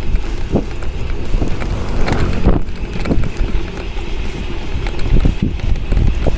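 Wind rushing over the microphone of a bicycle coasting downhill at about 20–40 km/h, with a steady low rumble. Irregular short knocks and rattles come from the bike rolling over rough pavement.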